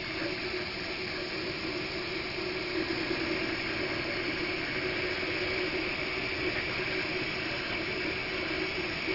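MakerBot 3D printer running mid-print: a steady whirring hiss of its motors and fans.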